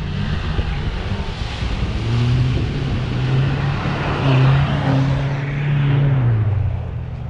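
4WD SUV engine revving hard under load as it ploughs through a mud bog, its note climbing and holding before dropping near the end, with mud and water churning and splashing from the tyres.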